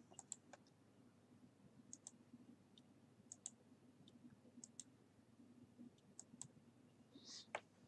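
Faint computer mouse clicks, about six or seven over the stretch and a second or so apart, most of them a quick double tick, as points of a polygon are clicked on screen. A faint low hum of room tone lies under them.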